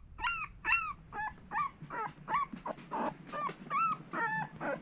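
Twelve-day-old Shar Pei puppies whimpering and squealing: a steady run of short, high, arching cries, about two or three a second.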